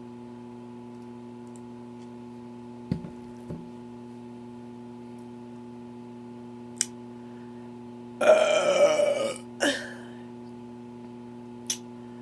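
A woman's long, loud burp about eight seconds in, lasting about a second, followed quickly by a shorter one, over a steady low hum. A few faint knocks and clicks come earlier.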